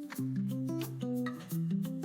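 Background music: an instrumental track with plucked guitar-like notes in a steady rhythm.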